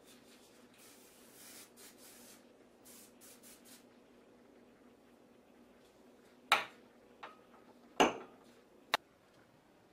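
Things being handled and set down on a bathroom counter: soft rustling for the first few seconds, then four sharp knocks in the second half, three of them loud, as items are put down.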